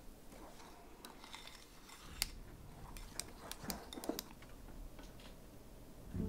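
Faint, scattered light clicks and taps of kitchen utensils, with a handful of sharper clinks in the middle.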